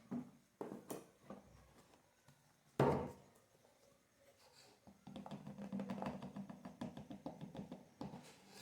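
Kitchen handling noises as flour is measured into a blender jar. There are scattered knocks, a loud one about three seconds in, then a few seconds of rapid scraping and tapping from about halfway.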